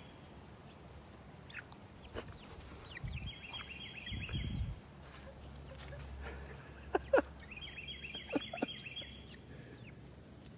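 Backyard chickens clucking, with a rapid high chattering trill twice. A couple of sharp clicks about seven seconds in are the loudest sounds.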